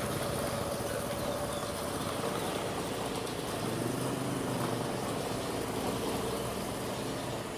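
A motor vehicle's engine running steadily.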